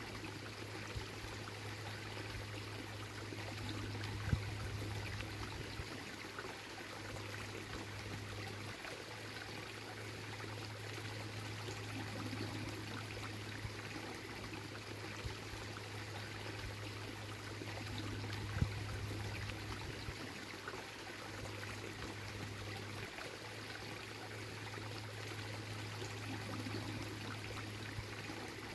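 Waterfall running steadily, its water rushing and splashing in an even, unbroken wash. Two brief sharp clicks cut through, one about four seconds in and one a little past the middle.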